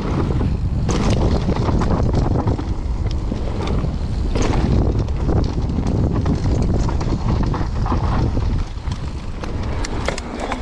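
Wind buffeting the microphone as an electric mountain bike rides fast down a dirt trail, with a heavy tyre rumble and scattered sharp rattles and clicks from the bike over the bumps. It eases a little near the end.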